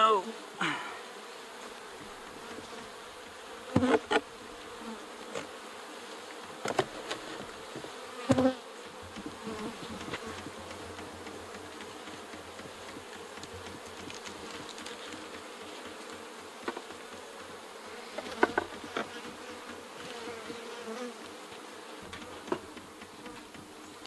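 Honeybees buzzing around an open Langstroth hive in a steady hum, with a few short knocks as the wooden hive parts and the cover are handled and set back in place.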